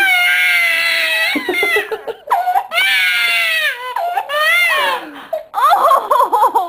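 Baby crying: three long, high-pitched wailing cries, then shorter, broken sobbing cries near the end.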